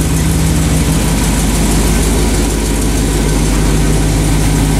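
Old Chevy truck's engine idling steadily with a low, even rumble.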